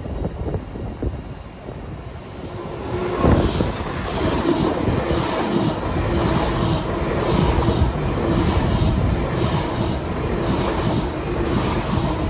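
LNER Azuma (Hitachi Class 800/801) train running along the platform close by, growing louder about three seconds in. It gives a steady rumble with a held hum and a regular clicking of the wheels, a little over once a second.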